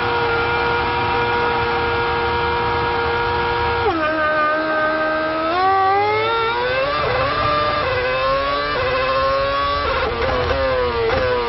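Onboard sound of a Ferrari Formula One car's V8 engine at a standing start. It is held at steady high revs for about four seconds, drops sharply as the clutch bites, then climbs in pitch through several quick upshifts, each gear change a sudden dip in pitch.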